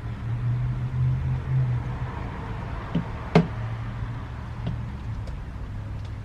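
Two knocks during work on a dirt bike's rear axle, a light one and then a sharp, loud one about three and a half seconds in, over a low steady hum.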